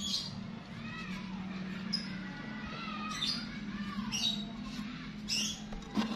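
Light metal clinks and scrapes as a flat steel bar is handled against a notched square steel tube, over a low steady hum. A few short squeaky calls that rise and fall in pitch run through it.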